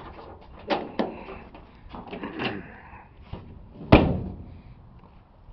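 A couple of sharp clicks and some rattling, then about four seconds in the 1955 Ford's trunk lid is slammed shut with one heavy, ringing thud.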